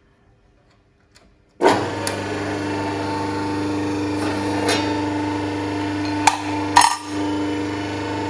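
A 3 kW single-phase hydraulic rebar cutting and bending machine switches on about a second and a half in, and its electric motor and pump run with a steady hum. A few sharp metallic knocks sound over the hum, two of them close together in the second half.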